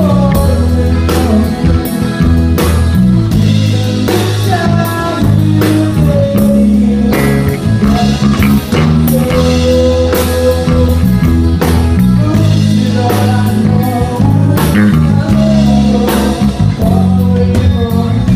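Live rock band playing a song: a drum kit keeping a steady beat under guitar and bass, with a melody line above.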